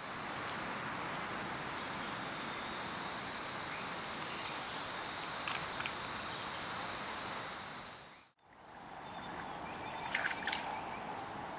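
Camera-trap recording of outdoor forest ambience: a steady high-pitched hiss that cuts off suddenly about eight seconds in. A quieter ambience follows, with a thin steady high tone and a couple of brief high chirps about two seconds later.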